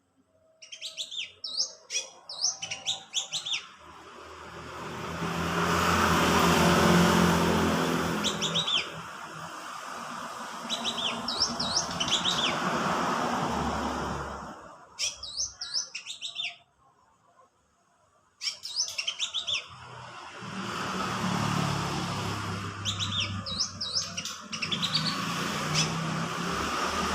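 Brown-throated sunbird singing in repeated bursts of rapid, high, sharp chirps, six bursts in all. Twice a loud rushing noise with a low hum swells up and fades under the song, and it is the loudest thing at those moments.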